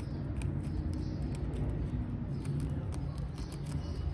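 Light clicks and rustling from hands working on a plastic mini kite and its sticks, over a steady background noise.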